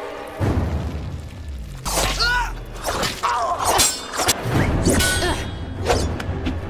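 Swords clashing: a run of sharp metal-on-metal clangs, each ringing briefly, coming every half second or so over a low rumble. The run follows a heavy thud about half a second in.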